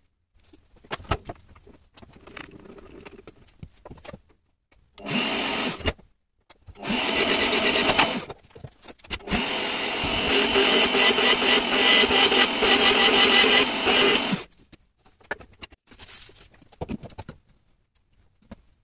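Benchtop drill press running and drilling through a flat plate in three bursts: a short one about five seconds in, then two longer ones, the last about five seconds long. Before and after, scattered clatter and knocks from handling tools and parts on the bench.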